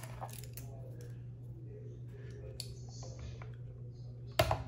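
Small plastic wire connectors being handled and pushed into the ports of a Flipsky dual FSESC 6.6 speed controller: scattered light clicks, with one sharp louder click a little after four seconds in, over a steady low hum.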